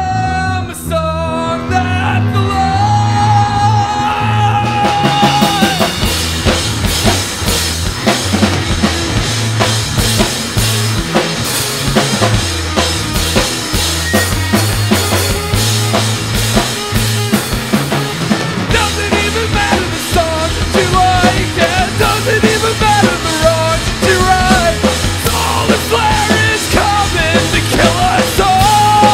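Live funk-rock band playing: electric guitar over bass guitar and drum kit. A held guitar note opens, the drums and full band come in about five seconds in, and a bending guitar lead line runs through the second half.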